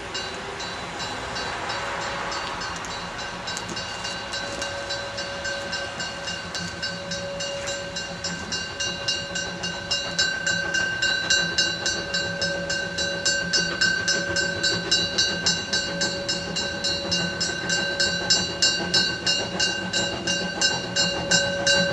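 Narrow-gauge steam locomotive working a train, its exhaust beats coming about three a second and growing louder as it approaches. A steady high tone sounds throughout.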